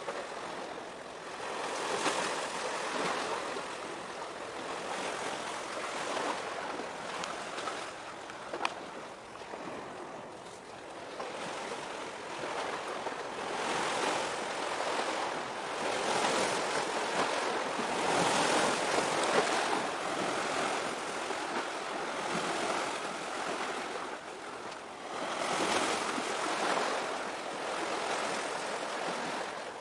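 Sea waves washing ashore, a rushing noise that swells and eases every few seconds.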